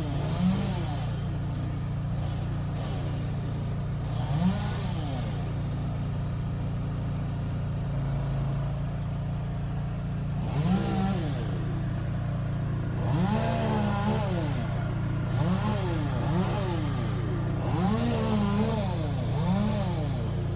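Gas engine revved in short bursts, its pitch rising and falling about seven times and mostly in the second half, over a steady low engine drone from the tree crew's power equipment.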